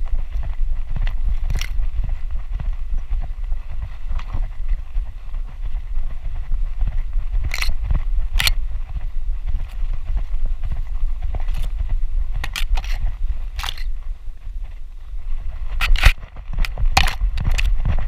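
Low rumble of wind and movement on a GoPro camera strapped to a walking dog's harness, with grass stems brushing and clicking against the camera now and then. The loudest click comes about sixteen seconds in.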